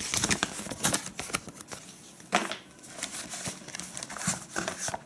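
Paper leaflets and a printed manual being handled: irregular rustling, flicking and light clicks of paper, with one louder rustle about two and a half seconds in.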